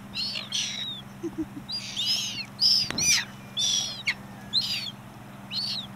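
Red-billed gulls calling: a run of short, high-pitched calls, about nine in six seconds, over a faint low steady hum.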